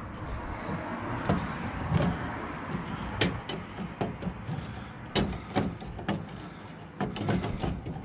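Ford F-150 spare-tire cable winch being cranked down with the jack rod, giving irregular sharp clicks and clunks as the spare tire lowers on its steel cable.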